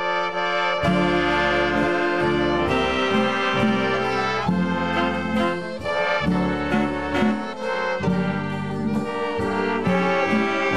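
Big band with saxophones and brass playing an instrumental introduction, starting suddenly and running on with no singing yet.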